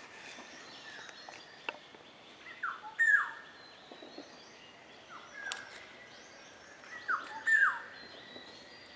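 Black-hooded oriole calling: three times a pair of clear whistled notes, each sliding down in pitch, repeated about every two seconds.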